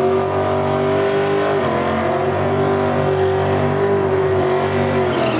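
Fox-body Ford Mustang's engine held at high, steady revs, with a brief dip about one and a half seconds in and a drop in revs right at the end.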